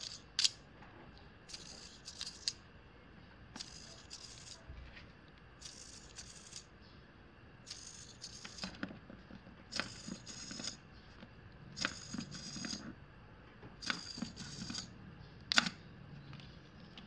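Small hobby servo whirring in short bursts, about every two seconds, as it drives a plastic robot gripper's jaws open and shut. A few sharp plastic clicks, the loudest near the start and about three-quarters of the way through.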